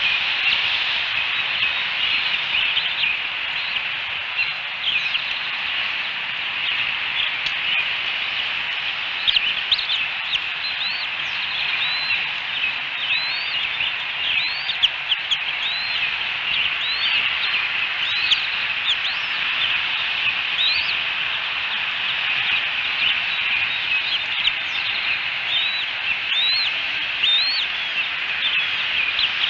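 Bald eaglet chicks peeping while being fed: a long run of short, high, upward-curling chirps, about one a second, over a steady hiss.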